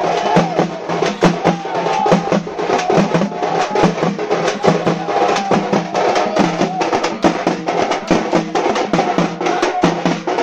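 A group of parai frame drums beaten with sticks, playing a fast, dense, driving rhythm of many strokes a second.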